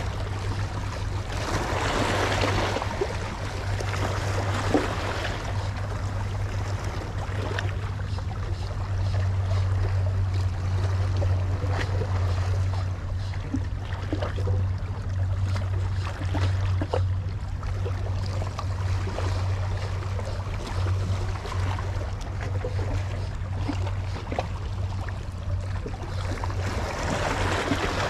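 Small sea waves washing against shoreline rocks, swelling about two seconds in and again near the end, over a steady low rumble.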